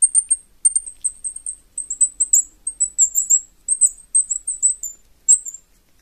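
Twist-type bird call, a metal eye screw turned against a wooden plug, squeaking out a rapid run of short, high chirps, several a second, that stop shortly before the end. The maker finds this take too weak, the pressure too light for a good bird-like call.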